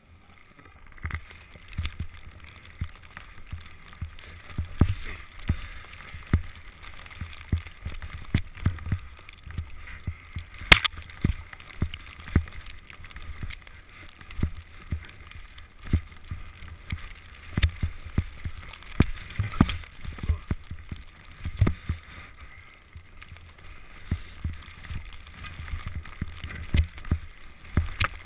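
Skis hissing through deep powder snow with a steady rush, heard on a camera carried by the skier, broken by irregular thumps and knocks as the skier turns, with one sharp knock about eleven seconds in.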